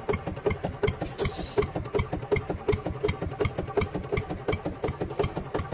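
Steady engine chugging with even knocks at about six a second: the running sound of a miniature RC two-wheel walking tractor.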